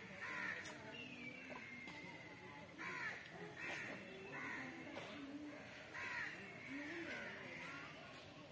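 Crows cawing repeatedly in the background, about one call a second.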